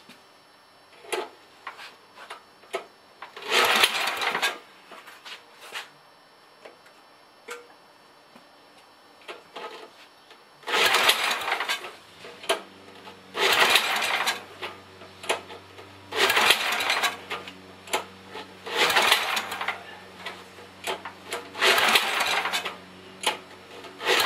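The small engine of a 1964 Sears Custom 600 garden tractor being cranked over in about seven short, separate start attempts, each about a second long, without catching: a cold engine on choke failing to start.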